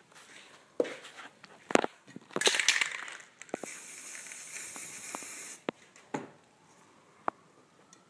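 Aerosol spray-paint cans knocking and clinking as they are picked up and set down, then a short rattle and a steady hiss of spray paint lasting about two seconds, followed by a few more clicks of cans.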